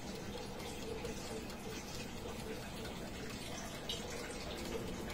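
Electric air fryer running: its fan gives a steady whir with a low hum.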